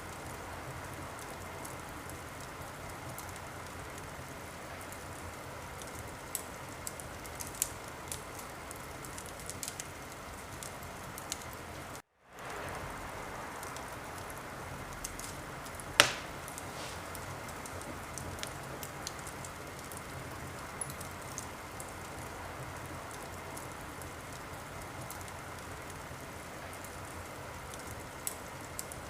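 Wood fire crackling in a fireplace: a steady hiss with scattered small pops and one loud sharp pop about two-thirds of the way through. Near the middle the sound cuts out for a moment and fades back in.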